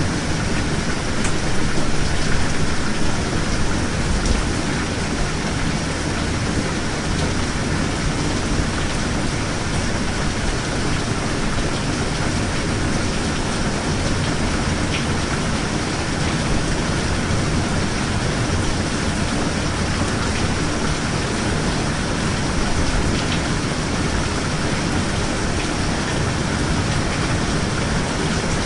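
Steady heavy rain falling, an even hiss with a few faint drop ticks.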